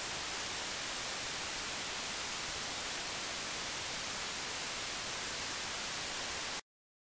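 Steady hiss of recording background noise with a faint high-pitched whine, which cuts off suddenly into silence near the end.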